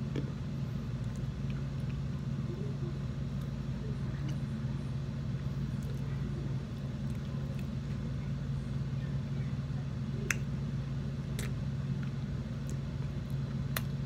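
A steady low hum, with faint clicks and smacks from a mouthful of cornstarch being chewed. Three sharper clicks come in the last four seconds.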